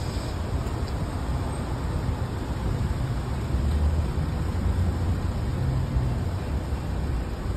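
Gas pump dispensing gasoline: a steady low rumble with a hiss of fuel flowing through the pump and hose.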